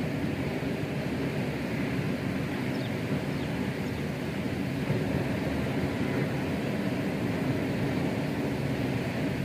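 Steady low rumble of wind buffeting the microphone, with no distinct event standing out above it.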